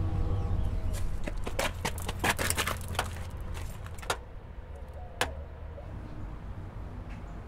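Keys jangling and clicking against a car's exterior door handle: a dense cluster of rattling clicks about a second in, then two single sharp clicks a second apart as the handle is worked.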